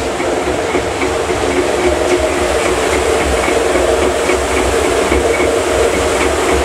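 Rotating drum of an elaichi dana sugar-coating machine running: a steady low rumble and hum with faint regular ticking.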